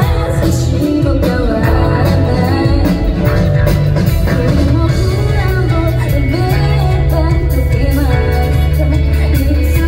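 A live rock band playing: a female lead singer sings over electric guitars, bass guitar, keyboard and a driving drum beat.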